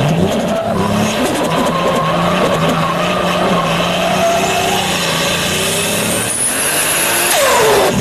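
Turbocharged car engine pulling under acceleration, its note rising and holding, with a high turbo whistle climbing from about six seconds in. Near the end the throttle lifts and the revs fall away.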